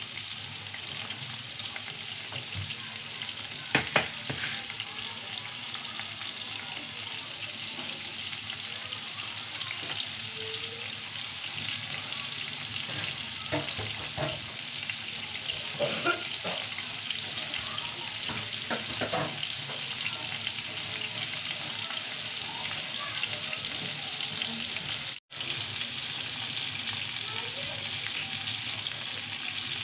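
Beef seekh kebabs frying in ghee and oil on an iron tawa: a steady sizzle with a few sharp pops or clicks. The sound drops out for an instant late on.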